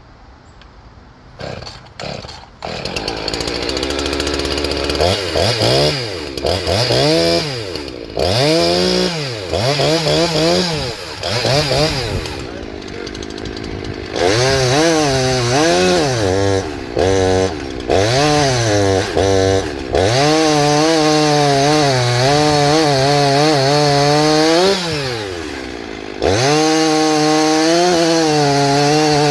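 Jonsered CS2152 two-stroke gas chainsaw pull-started, catching after a couple of pulls. It is revved up and down several times, then held at full throttle for long stretches as it cuts wood, dropping briefly near the end before revving up again.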